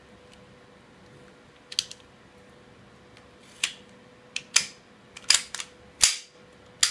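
Sharp clicks and clacks from the metal slide and polymer frame of a KSC Glock 19 airsoft pistol as the parts are fitted together during reassembly: one click about two seconds in, then a quicker run of about six from the middle on.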